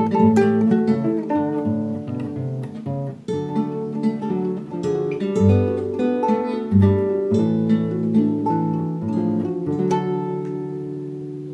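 Acoustic guitar picking and strumming a melody with chords, ending about ten seconds in on a final chord that rings and fades out.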